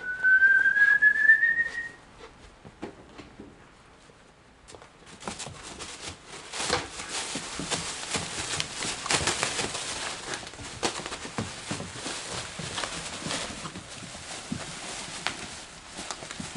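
A single high squeal rising in pitch for about two seconds at the start. From about five seconds in, continuous crinkling and rustling of a black plastic trash bag as puppies dig into it and tug at it.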